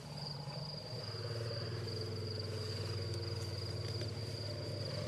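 Crickets chirring in a steady night-time chorus, one even high trill. A low steady hum sits beneath it from about a second in.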